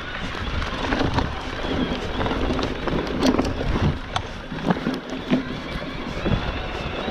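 Wind rushing over the camera microphone and tyres rolling on a dirt singletrack under an electric mountain bike, with sharp clicks and knocks of the bike rattling over bumps, most of them in the middle.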